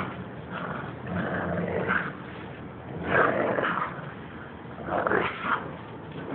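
Dogs growling as they tug on a rope toy, a low rough growl throughout with two louder snarling growls about three and five seconds in.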